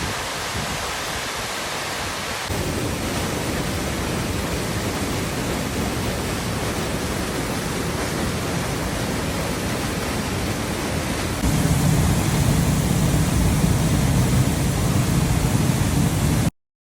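Rushing creek water falling over cascades: a steady, even rush of noise that steps up in level about 2.5 s in and again, louder and deeper, about 11.5 s in, then cuts off suddenly just before the end.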